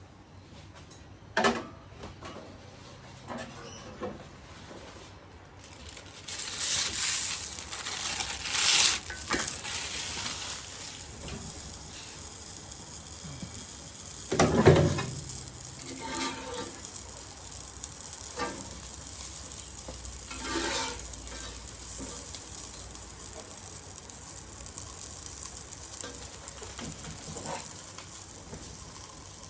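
Food frying in hot oil in a pan. A sizzle starts about six seconds in and flares up loudly twice, and a cooking utensil knocks against the pan several times, loudest near the middle.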